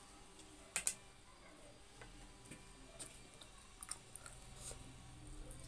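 Faint mouth sounds of a person eating with the fingers: soft chewing and wet smacks, with two sharp clicks close together about a second in and scattered small ticks after.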